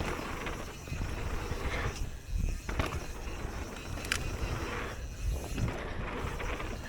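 Mountain bike tyres rolling fast over a dirt trail, with a steady rumble, wind noise and a few sharp clattering knocks from the bike.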